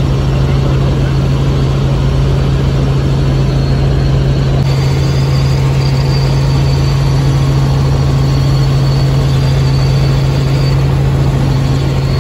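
Helicopter in flight heard from inside the cabin: a loud, steady low drone of rotor and engine over a rushing hiss, with a faint high whine joining about five seconds in.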